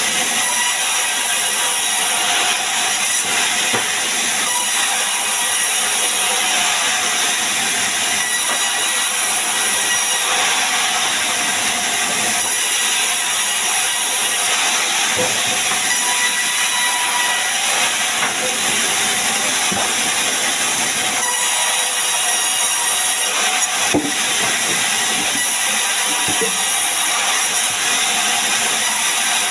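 Sawmill band saw running and cutting sengon logs into beams: a loud, steady hissing whine from the blade, with a few light knocks as the timber is shifted on the table.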